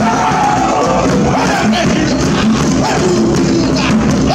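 Cook Islands dance music: fast, dense drumming with voices singing over it.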